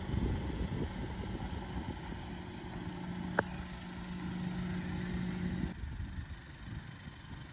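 2024 Toyota Tacoma pickup's engine running at low revs as the truck crawls slowly over rock, a steady low hum with one sharp click about halfway through.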